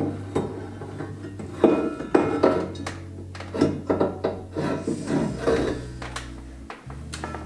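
Metal clanks and knocks from a stock exhaust manifold being handled and fitted against the engine, several of them in quick succession through the middle. Background music with a steady bass line plays underneath.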